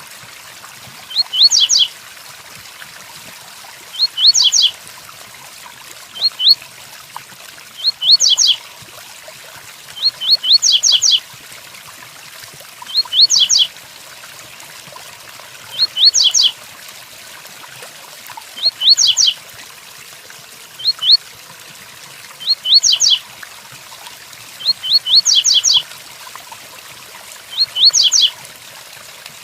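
Double-collared seedeater (coleiro) singing its 'tui tuí' song: short phrases of a few quick rising whistled notes, repeated every two to three seconds, about a dozen times. Under it runs a steady hiss of rain.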